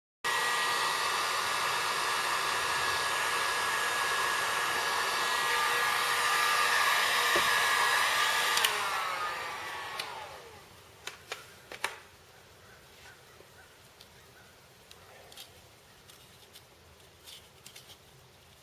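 Heat gun blowing steadily with a high whine, switched off about nine seconds in, its fan then winding down with a falling pitch. After that come a few light clicks and taps.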